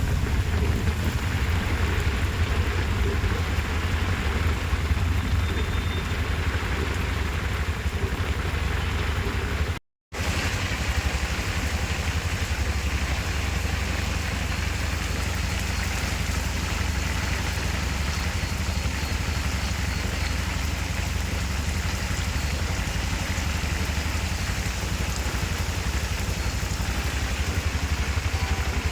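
Heavy rain falling steadily, with a steady low rumble underneath. The sound drops out for a moment about ten seconds in, then the rain carries on as before.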